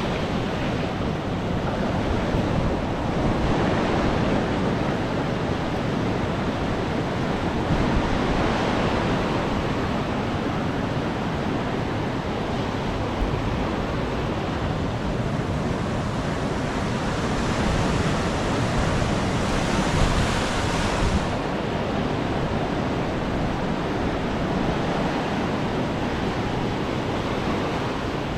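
Ocean surf breaking and washing up on the beach in slow swells, with wind buffeting the microphone.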